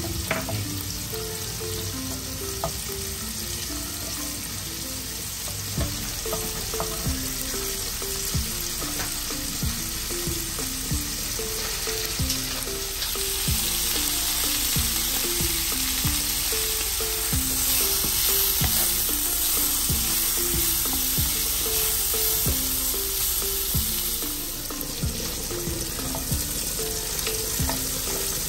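Chicken strips sizzling in a grill pan while a wooden spatula scrapes and taps against the pan. Through the middle stretch the sizzle is louder, with vegetables frying. Soft background music with a simple melody plays underneath throughout.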